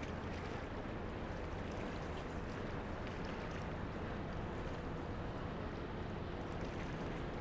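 Steady low rumble and faint hum of a large container ship under way, with small splashes of water lapping.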